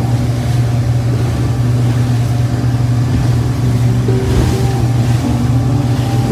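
Motorboat engine running steadily at speed, with water rushing and splashing in the churning wake.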